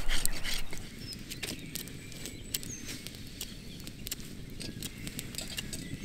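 A knife's back edge scraping bark off a green hazel stick, loudest in the first second. After that comes a quieter background of scattered small clicks and a few faint bird chirps.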